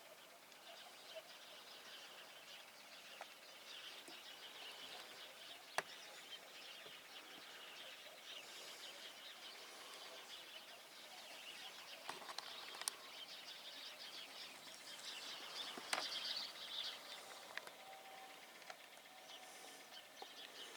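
Faint, continuous chirping and twittering of small songbirds, with a few sharp clicks, the loudest about six, thirteen and sixteen seconds in.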